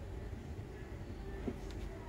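Low steady background rumble, with a single soft knock about one and a half seconds in as a silicone spatula scrapes mayonnaise out of a ceramic ramekin.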